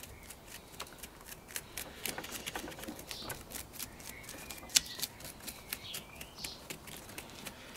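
Bamboo chopsticks scratching and poking through a ficus root ball, loosening compacted soil: a run of irregular dry scratches, crackles and ticks, with one sharper click about five seconds in.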